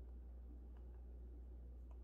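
Quiet room tone with a steady low hum and a few faint clicks of TV remote control buttons being pressed, one a little before a second in and one near the end.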